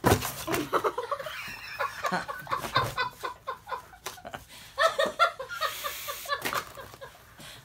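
People laughing and chuckling in short bursts, mixed with some mumbled, wordless vocalising, with a sharp click right at the start.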